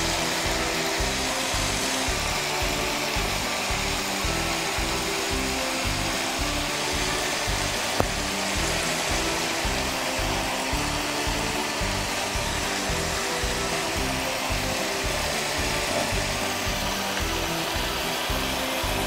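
Bitter gourd curry bubbling and sizzling in a pan over raised heat as its gravy boils down, a steady hiss. Background music with a steady beat plays under it, and a single click comes about eight seconds in.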